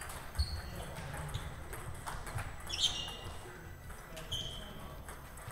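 Table tennis rally: the celluloid ball clicking off paddles and the table, with a few short shoe squeaks on the hall floor and the hum of other tables playing in a large hall. The sharpest knock comes near the middle.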